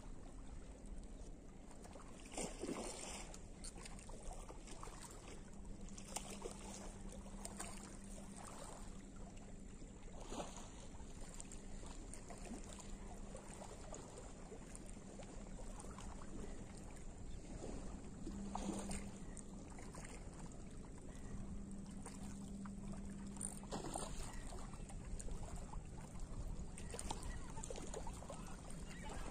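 Spinning reel being cranked in short spells while playing a hooked carp, a low hum that starts and stops every few seconds, over steady wind noise and water lapping at a rocky shore, with a few sudden gusts or knocks.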